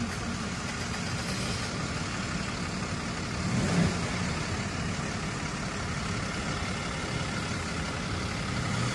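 Steady low hum of a truck engine running at low speed as a heavy-duty Ram tow truck manoeuvres close by, heard from inside a car. The engine swells briefly about three and a half seconds in.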